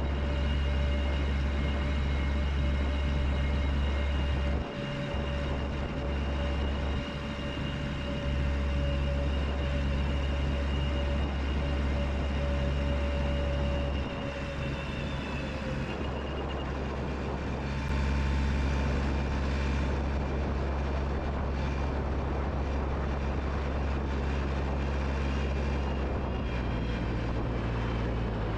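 Sawmill running, its engine droning steadily with a high whine over it as the saw works through an ash log. The whine drops a little about halfway through.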